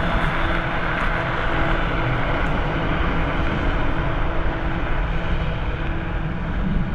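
Piaggio P-180 Avanti's twin pusher turboprop engines running with a steady drone and hum. The higher hiss thins out near the end.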